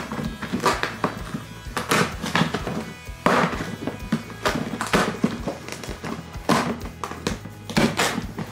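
Cardboard box being torn open and handled: the flap ripping and scattered thunks against the box, over steady background music.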